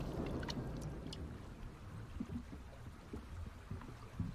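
Faint watery rushing and low rumble, fading through the first second, with a few soft low knocks later on.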